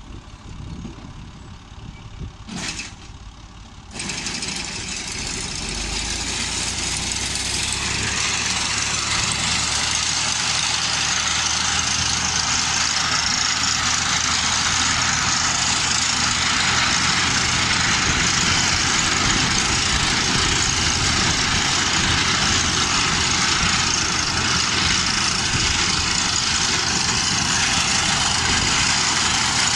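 Tractor engine running while it drives a front-mounted reaper through standing wheat: a steady, dense mechanical din with an engine hum beneath. A sharp click comes about three seconds in. The sound jumps louder about four seconds in and settles into a steady level a few seconds later.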